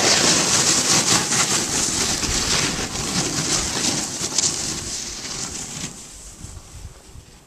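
Snowboards sliding and scraping over snow, a steady hiss with a low rumble, that fades away after about five seconds as the riding stops.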